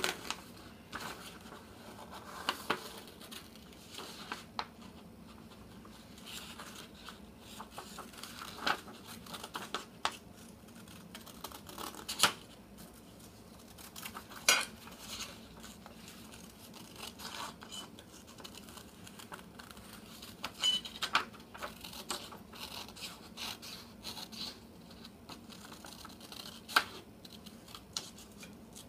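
Scissors snipping around a paper pattern, with irregular sharp snips and paper rustling.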